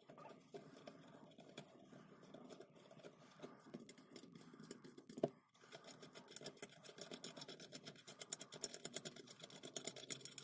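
Screws of a cast-iron Marples Ridgway corner clamp being wound through their threads by hand: faint scraping and handling, one sharp knock a little after five seconds, then a fast, even run of small clicks.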